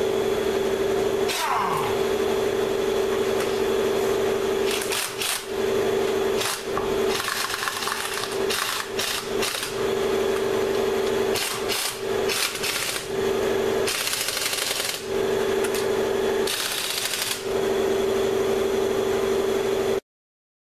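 A power tool running with a steady whine, stopping briefly several times, with harsher bursts at intervals, as the wheel's lug bolts are driven in. It cuts off suddenly near the end.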